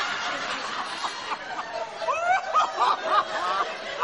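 Audience laughing and chuckling at a joke, with a few louder individual laughs standing out about two to three seconds in.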